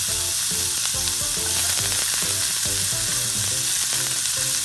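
Chopped onions sizzling in hot bacon drippings in a stainless steel pan: a steady frying hiss. Background music with short plucked notes on a regular beat runs underneath.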